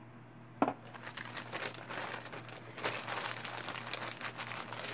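A single knock about half a second in, then packaging crinkling and crackling continuously as products are handled and unwrapped.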